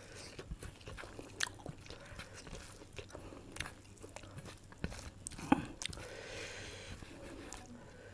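Close-up chewing of chicken curry and rice, with wet mouth smacks and sharp clicking bites at irregular intervals, one louder smack about five and a half seconds in.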